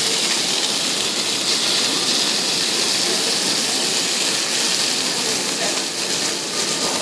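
Chicken pieces searing in hot oil in a pan, a steady loud sizzle as the meat browns.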